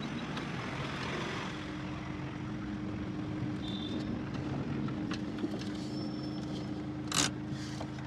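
Car engine and road noise heard from inside a moving car: a steady low hum, with a short loud rush about seven seconds in.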